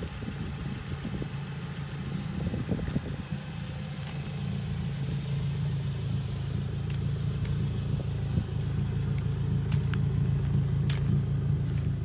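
A car engine idling with a steady low hum that slowly grows louder, with a few light clicks near the end.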